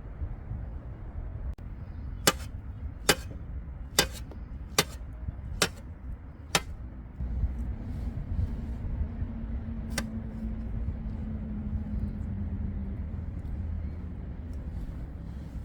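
Six sharp clicks or taps, roughly a second apart, then one more a few seconds later, over a steady low rumble.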